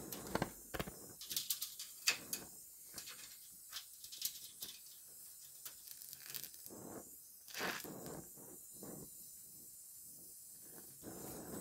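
Oxy-acetylene welding torch hissing steadily as filler rod is melted into a seam on a steel car trunk lid, with irregular crackles and pops from the weld puddle.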